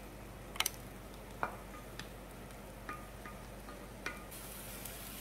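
About half a dozen light clicks and taps of a spatula against a divided serving bowl as chopped spinach is scraped out into the frying pan, a few of them with a brief ring from the bowl, over a faint steady hiss.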